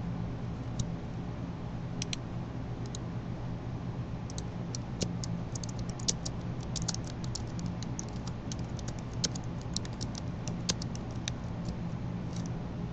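Computer keyboard and mouse clicking: scattered sharp clicks, coming in a quicker run from about four to eleven seconds in, over a steady low electrical hum.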